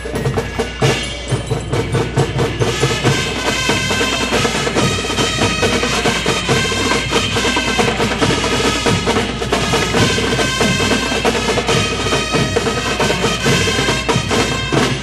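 Festival dance music driven by loud, fast, steady drumming, with pitched melody running over the beat.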